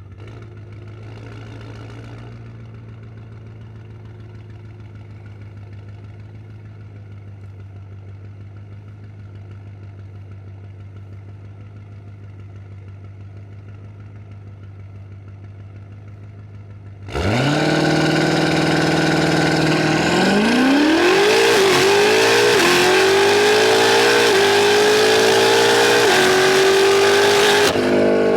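Tuned BMW F90 M5's twin-turbo V8 idling steadily. About two-thirds of the way in it launches at full throttle, and its pitch climbs and drops back with each of several quick upshifts.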